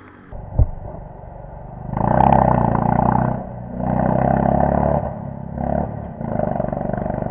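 Motorcycle engine revving hard in surges of about a second, dropping away between them, then running steadily near the end. A single sharp knock sounds about half a second in.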